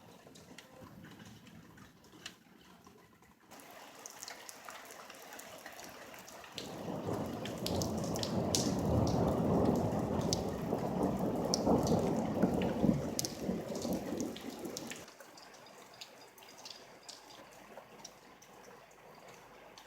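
Rain dripping in scattered ticks, with a long roll of thunder rumbling in about six seconds in, lasting some eight seconds before dying away and leaving the drips.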